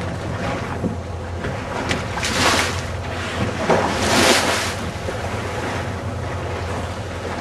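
Catamaran under way at sea: a steady low drone with rushing water and wind on the microphone. Two louder rushing surges come about two and four seconds in.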